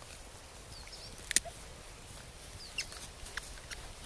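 A knife slicing thin pieces off a birch polypore mushroom: a few short crisp cuts, the loudest just over a second in.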